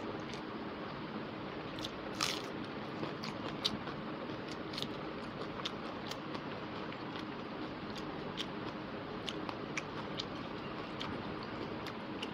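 Close-miked eating sounds from a person eating rice and chicken curry by hand: wet chewing and mouth clicks, with fingers squelching and mixing rice on the plate. Short sharp clicks come all through, over a steady hiss, and there is a louder crunchy one about two seconds in.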